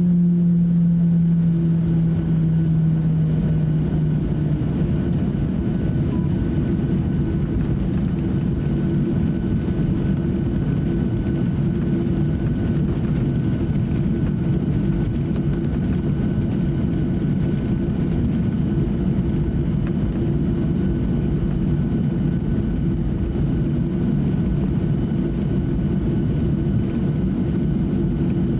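Cabin noise of a Boeing 737-800 taxiing: the steady rumble of its CFM56 jet engines at low taxi power, with a few steady tones on top. A lower hum fades out about four seconds in.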